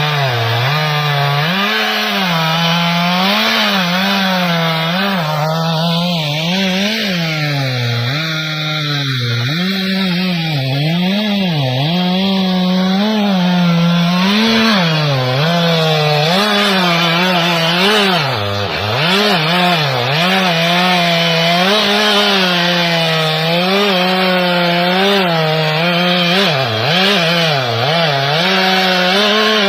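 Chainsaw cutting wood. The engine's pitch keeps dipping and recovering as the chain bites into the cut and eases off.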